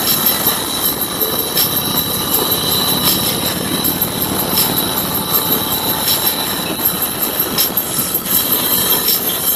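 A group of motorcycles riding at road speed: steady engine noise mixed with road and wind noise, loud and unbroken.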